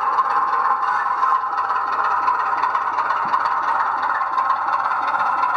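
00 gauge model locomotive running on the layout: a steady motor hum with a continuous fine rattle of wheels on the track.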